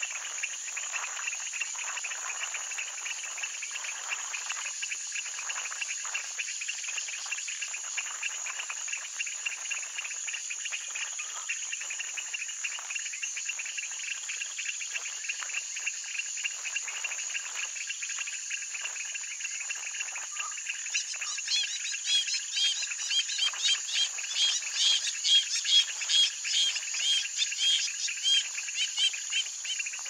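Steady, high-pitched chorus of crickets and other insects in a wetland. About two-thirds of the way through, a louder run of rapid pulsed calls rises over the chorus and carries on until near the end.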